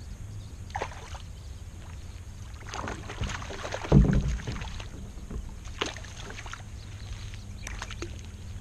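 A hooked fish thrashing and splashing at the water's surface beside a kayak while being fought on a rod, with scattered small water slaps and clicks and one loud splash about four seconds in, over a low steady rumble.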